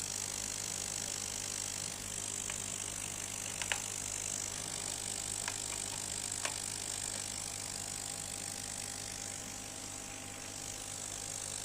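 Steady low mechanical hum and high hiss with a faint steady whine, and four light clicks a few seconds in.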